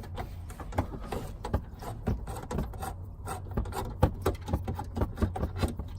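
Irregular clicks, knocks and rattles of a part being worked loose and pulled out from under a vehicle's dashboard by hand.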